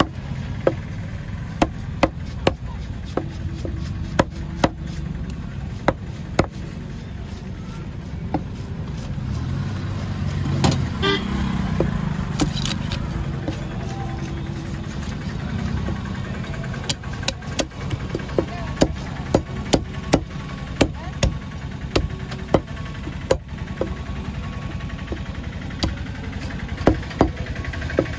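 Cleaver chopping through fish on a wooden chopping block: sharp knocks at an uneven pace, often in quick runs, over a steady low rumble.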